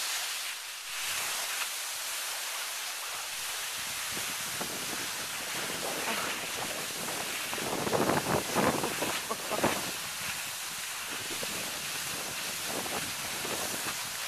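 Steady hiss of wind on the microphone and skis sliding over snow, with a few louder scrapes from about eight to ten seconds in.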